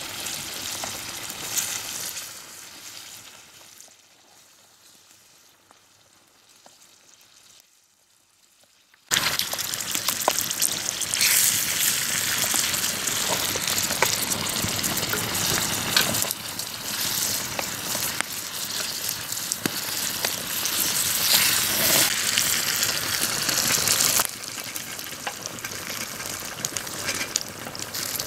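Tomato paste with flaked red pepper sizzling in a small frying pan over an open wood fire, with sharp crackles from the burning wood. The hiss fades away a few seconds in, then comes back suddenly and loud, dropping a little near the end.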